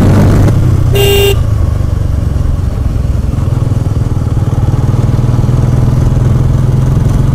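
Bajaj Pulsar N160's single-cylinder engine running steadily under way, heard from the rider's seat. A short horn toot comes about a second in.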